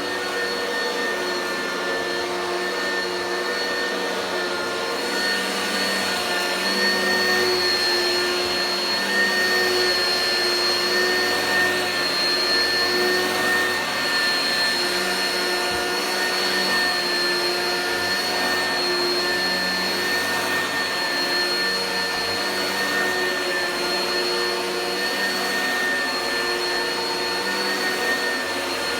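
Oreck vacuum cleaner running steadily: a constant rushing noise with a high, even motor whine on top.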